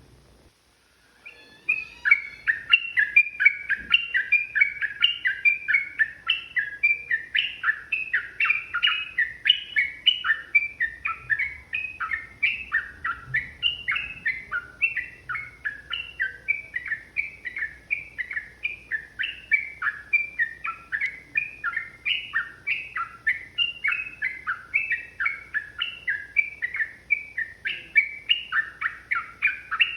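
Sooty-headed bulbul (trucukan) singing a long, unbroken run of quick, bubbling phrases that starts about two seconds in.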